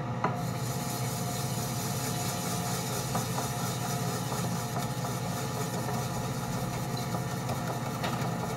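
Dish brush scrubbing baking soda and cleaner paste around the inside of a stainless steel saucepan, a steady scrubbing noise broken by a few light knocks of the brush against the pan. A steady low hum runs underneath.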